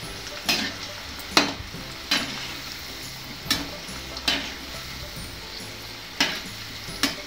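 Gram-flour kothimbir vadi pieces sizzling as they deep-fry in hot oil in a steel kadai. A metal ladle knocks and scrapes against the pan about seven times as the pieces are turned.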